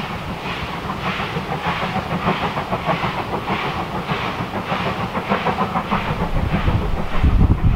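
Steam locomotive working hard, its exhaust beats coming evenly at a little under two a second. Wind buffeting the microphone grows loud near the end.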